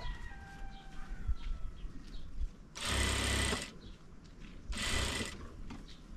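Sewing machine running in two short bursts, the first just under a second long and the second shorter, with birds chirping in the pauses between.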